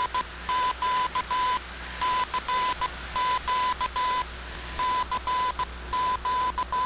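Morse code sent as a single steady tone keyed in long and short beeps, in several groups with gaps between them, over steady shortwave hiss and a low hum. It is received on a shortwave receiver and is the station's CQ DX call sign-on.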